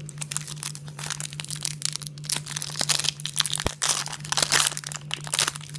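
Foil trading-card packet crinkling and tearing as it is pulled open by hand: a dense run of sharp crackles, loudest in the middle and second half.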